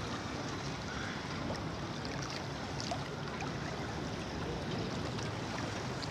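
The Kolubara river flowing: a steady, even rush of water.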